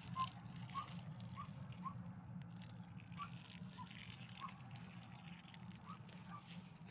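Water pouring quietly from a plastic watering can onto dry soil.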